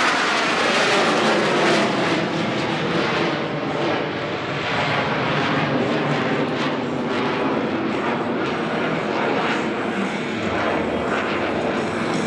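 Jet noise from an Alenia Aermacchi M-346 Master's twin turbofan engines as the trainer flies a display pass. It is a loud, steady rush that swells and dips slightly as the aircraft manoeuvres.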